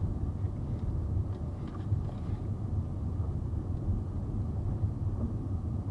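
A car driving along a road: a steady low rumble of tyres and engine, heard from the dash cam inside the car.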